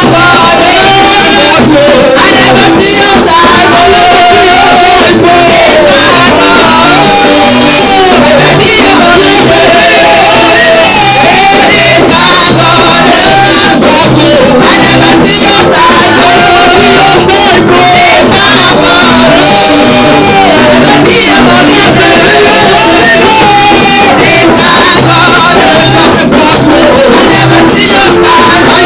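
Loud live gospel praise music: several women singing into microphones over an electronic keyboard, with a steady beat and a shaken tambourine.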